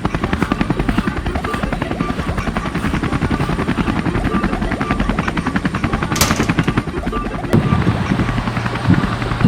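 Helicopter rotor sound effect: a fast, steady chopping of about ten beats a second, with a brief sharp hiss about six seconds in.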